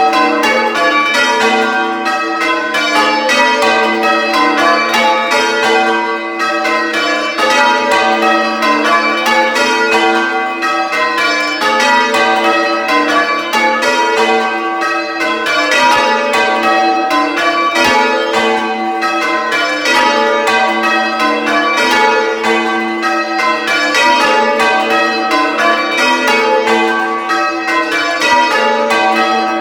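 A ring of six church bells hung for full-circle ringing, tenor 12-2-25 in G, ringing call-changes, heard up close in the belfry. The bells strike one after another in a steady, unbroken rhythm, row after row.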